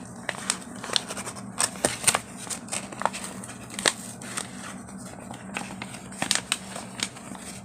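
Paper mailing envelope being worked open by hand: irregular crinkles and sharp clicks.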